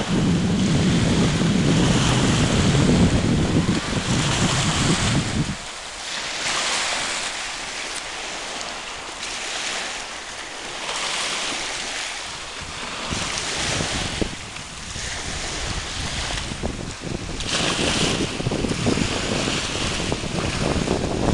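Small waves washing and breaking on a sandy river shore, each wash swelling and falling every few seconds. Wind buffets the microphone with a low rumble for the first five seconds or so, then drops away suddenly.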